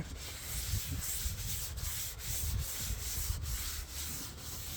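Steady hand rubbing on the wooden board's surface, in even strokes about three a second.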